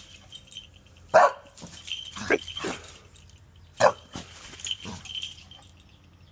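A dog barking: about five short single barks at irregular intervals, some louder than others.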